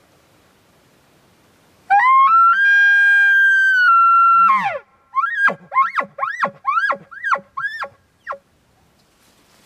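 A hunter's elk bugle call blown through a bugle tube, imitating a bull elk. A loud whistle climbs in steps about two seconds in, holds high for about two and a half seconds and drops off, followed by about eight short rising-and-falling chuckles.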